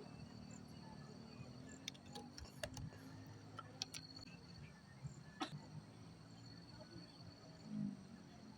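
Insects trilling steadily at a high pitch, over a faint low murmur of distant voices, with a few short sharp clicks in the middle.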